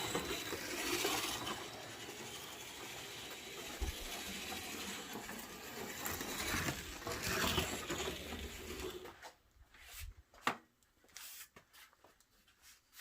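1/24-scale AMT Munster Koach slot car running on a test track: its small electric motor and rolling wheels give a steady whirring rattle that swells louder a few times as it passes close. About nine seconds in the running stops, leaving a few scattered clicks.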